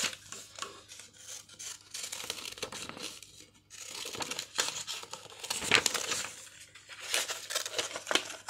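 Scissors snipping through a sheet of paper in a string of irregular cuts, with the paper rustling as it is turned to cut out a small circle.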